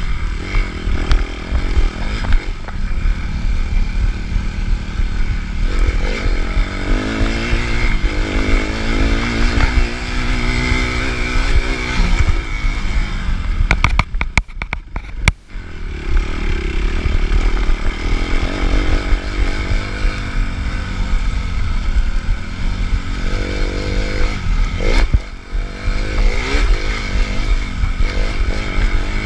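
Suzuki RM-Z250 four-stroke single-cylinder motocross engine revving up and down under load, with a low wind rumble. The throttle is shut off briefly about halfway and again near the end.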